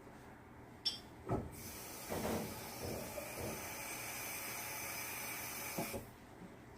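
Water running steadily for about four and a half seconds, a steady hiss that cuts off abruptly, after two short knocks about a second in.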